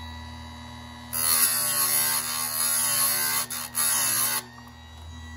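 Bench-top electric chainsaw sharpener: the motor hums steadily, then about a second in the grinding wheel is brought down onto a chain cutting tooth and grinds it harshly for about three seconds, with a short break near the end. It then lifts off, leaving the motor humming.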